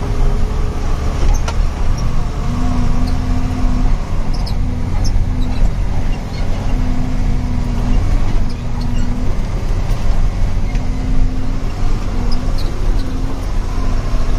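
Truck engine heard from inside the cab, running steadily as the truck crawls over a rough, rocky dirt road, with a low drone that comes and goes and light rattles and squeaks from the cab.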